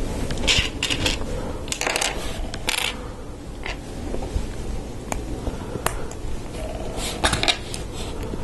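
Small plastic LEGO Technic parts being handled and fitted together: a scatter of short clicks and scrapes, clustered about half a second, two seconds and seven seconds in, with single clicks in between.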